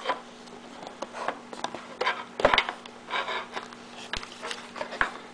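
Paper and thin cardboard rustling in short bursts, with scattered light clicks of the clear plastic case, as the inner sleeve of an iPod Touch box is opened and the instruction booklet is pulled out.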